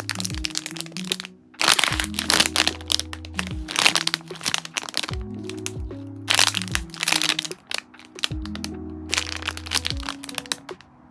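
Thin clear plastic squishy-toy bags crinkling and crackling in bursts every couple of seconds as they are handled. Soft background music with a steady bass line plays underneath.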